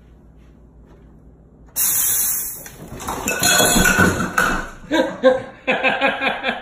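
A home soda-carbonating machine lets out a sudden loud hiss of gas about two seconds in. The hiss eases off over about a second, and a jumble of clatter and a person's voice follows.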